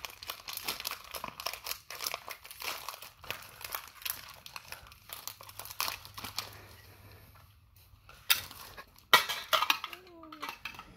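Foil Pokémon booster pack wrapper crinkling and crackling as it is handled and torn open, with two sharper, louder crackles about eight and nine seconds in. A voice sounds briefly near the end.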